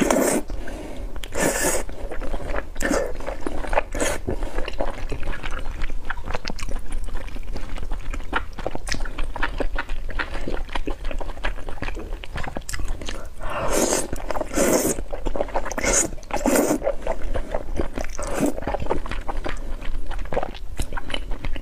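Close-miked eating: slurping thick, sauce-coated potato-starch noodles and chewing them, with a steady run of wet mouth clicks and smacks. Several longer slurps come a little past the middle.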